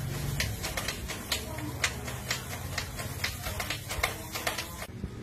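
Irregular sharp clicks and crackles of a dry areca palm leaf sheath being handled and slid into a heated plate press, over a low steady hum.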